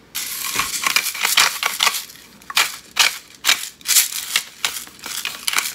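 Salt shaker shaken over a pot of sauce, the salt rattling inside with a crisp shake about two or three times a second.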